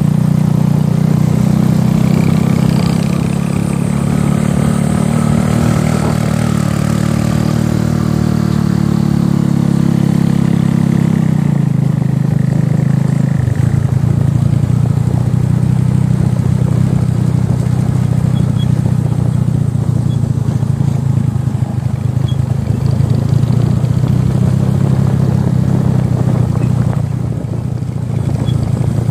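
A vehicle engine running steadily, its pitch easing down about eleven to thirteen seconds in.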